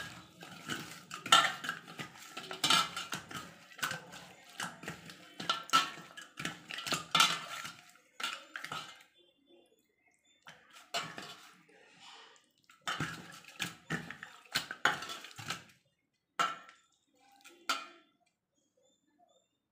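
Whole Indian mackerel being hand-mixed with spice masala in a stainless steel bowl: fish and fingers knocking and scraping against the metal in runs, with a pause about halfway and two single knocks near the end.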